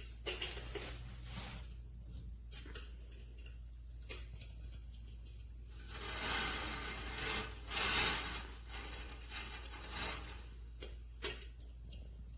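Electric fireplace insert's built-in fire-crackling sound effect: irregular pops and crackles, thickening into a denser crackle about six to eight and a half seconds in, over a steady low hum.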